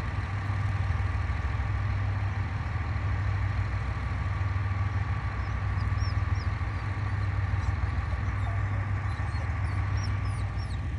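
Steady low hum with a thin steady whine above it from a standing passenger train. Small birds chirp from about halfway in.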